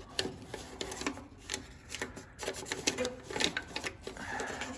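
A paper template crinkling and rustling as it is pressed and rubbed by hand against a sheet-metal frame plate, a run of irregular soft clicks and scrapes.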